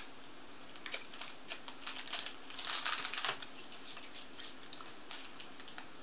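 Light crackling and clicking of a plastic sweet packet being handled and put down, busiest about two and a half to three seconds in.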